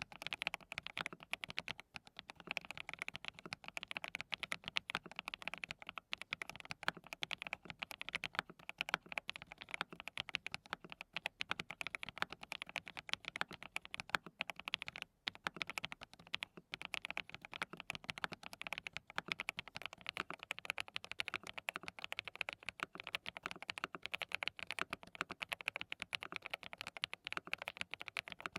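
Continuous fast typing on a hand-lubed DT35 87-key custom keyboard with Qsenn linear switches (Apple Mint V1, then Mint V1 about twenty seconds in): a dense stream of key presses, with one brief pause about fifteen seconds in.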